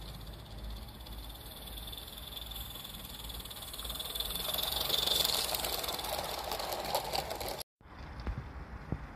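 A small live-steam tank locomotive running on a garden railway: the hiss of steam and a fast clicking rattle of wheels over the track and points. The sound grows louder to a peak about halfway through, then eases off. Near the end it cuts out abruptly, and a quieter stretch follows with a few sharp clicks.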